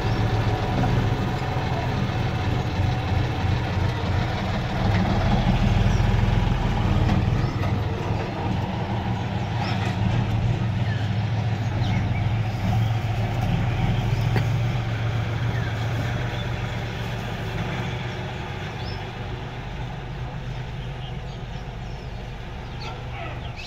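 John Deere 5045D tractor's diesel engine running steadily as it pulls a fully loaded stone-chip trolley away, growing fainter over the last few seconds as it moves off.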